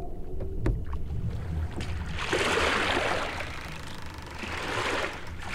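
Water splashing and sloshing around a small rowboat in two long swells, over a low steady rumble.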